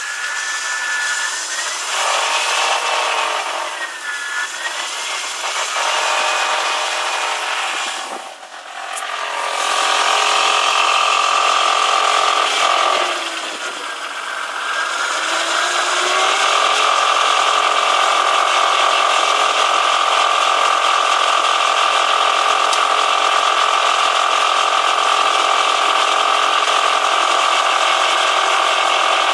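BMW E46 323i's M52TU 2.5-litre straight-six running cold, its revs rising and falling for the first half and then held steady, with a metallic rattle over the engine sound. The rattle appears only when the engine is cold and between about 1600 and 2100 rpm, and seems to come from under the engine toward the gearbox.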